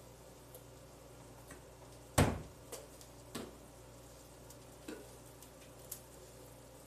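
Kitchen clatter: one loud knock of cookware about two seconds in, then a few lighter clicks and taps of utensils, over a steady low hum.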